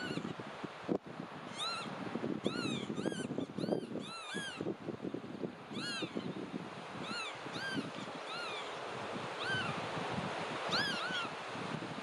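Marsh sandpiper calling: short clear whistled notes, each rising then falling in pitch, given singly and in quick runs of two or three at irregular intervals, over a steady low background noise.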